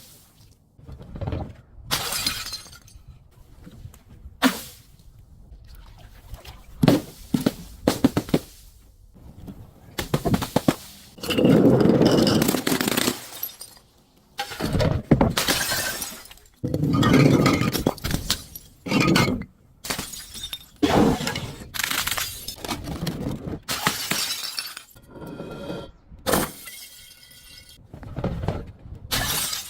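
Glass bottles breaking and being crushed: a long series of separate smashing and crunching noises, some short and sharp, a few longer and louder grinding crunches, with a brief faint ringing of glass near the end.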